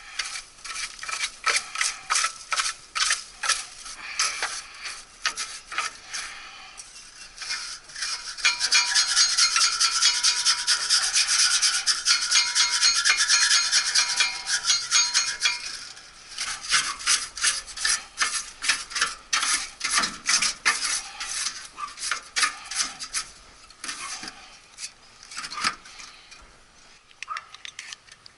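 A stiff brush scrubbing across the fins of an air-conditioner condensing coil in quick repeated strokes, loosening grass and debris lodged in the coil. The scrubbing turns louder and steadier for several seconds in the middle, then goes back to separate strokes.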